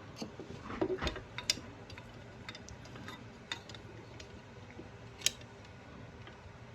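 Small scattered clicks and taps of a screwdriver and a small screw being worked against a circuit board, trying to get the screw started in its hole. One sharper click comes about five seconds in.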